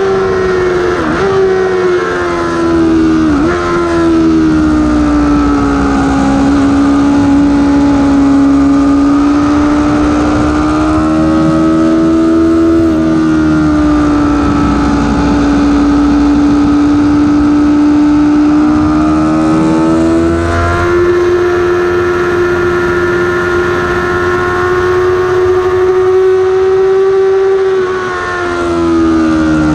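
Yamaha YZF-R6 inline-four sport bike engine at race pace over heavy wind rush: three quick downshifts in the first four seconds as it brakes hard from high speed, then steady running through a corner in third gear. The revs climb again past the middle and drop near the end as it brakes for the next bend.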